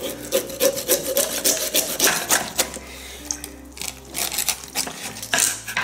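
Serrated knife sawing through a raw whole chicken on a cutting board, with repeated short rasping strokes.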